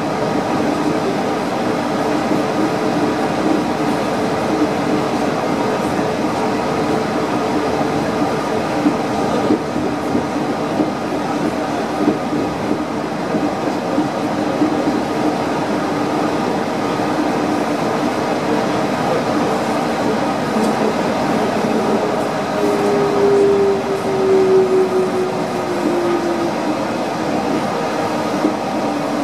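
Yurikamome rubber-tyred automated guideway train heard from on board while running: a steady running noise and hum. Near the end a brighter tone falls in pitch as the train slows into a station.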